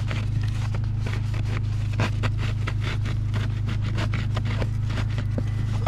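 Small plastic clicks and scrapes as a cabin air filter is pushed and squeezed into its housing behind the glovebox of a Fiat Grande Punto, over a steady low hum.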